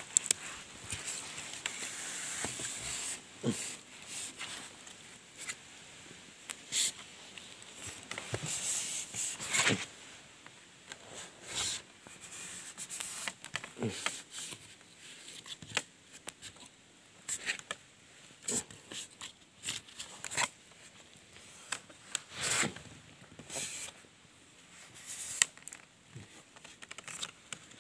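Irregular rubbing, scraping and scattered knocks of hands, clothing and a handheld camera against a bamboo climbing pole and tree bark as a climber works his way down a tall tree.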